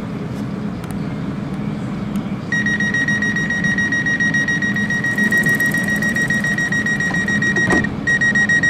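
Door-closing warning tone of a Stadler Citylink tram-train: a steady high beep starts about two and a half seconds in, breaks briefly near the end and sounds again as the doors close, over a steady low hum.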